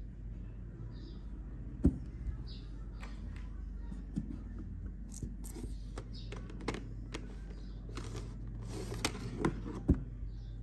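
Plastic CD jewel cases clicking and rubbing as they are handled in a cardboard box set and one is pulled out, with two sharp clicks, about two seconds in and near the end, over a steady low hum.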